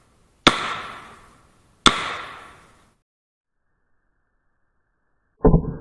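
Two rifle shots from a Winchester Model 94 lever-action in .30-30, about a second and a half apart, each echoing away over about a second. Then it goes dead silent, and near the end a muffled, low rumbling noise starts abruptly.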